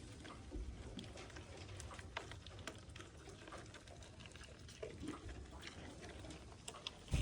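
Faint farmyard ambience: scattered light clicks and taps over a low rumble, with a couple of faint animal calls about five seconds in.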